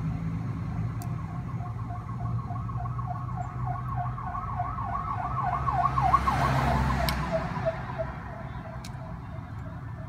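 A siren warbling, its pitch rising and falling several times a second, growing louder about six seconds in and then fading away, over a low steady rumble of traffic. A few light clicks.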